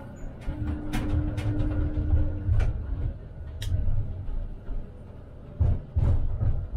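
Tram running on its track: a low rumble with sharp clicks and knocks scattered through it, and a steady hum for about two seconds in the first half.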